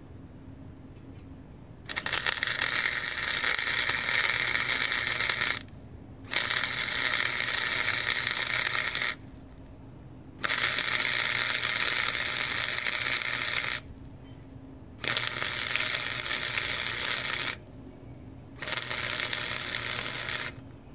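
Wire-feed welder arc crackling and sizzling in five runs of about two and a half to four seconds each, with short breaks between, as beads are laid on steel angle iron from an old bed frame.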